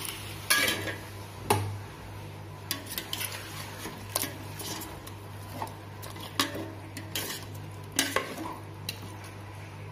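Steel ladle stirring mutton and masala in a steel cooking pot, clinking and scraping against the sides about eight times at uneven intervals, over a soft sizzle.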